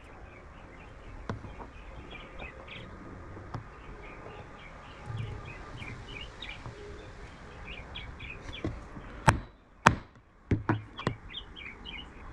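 Hammer striking a steel letter punch about five times in quick succession near the end, stamping a letter into a machined metal game piece. Birds chirp throughout in the background.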